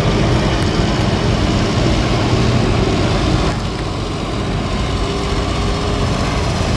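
Farm tractor engines running steadily at the pull track, with a low, constant rumble and no revving.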